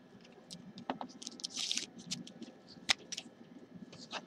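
Paper trading cards being handled: cards sliding and rustling against each other, with a few sharp clicks and taps as they are flicked and set down.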